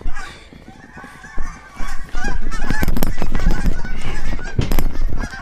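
A flock of geese honking overhead, many short calls overlapping. From about two seconds in, wind buffets the microphone with a loud low rumble.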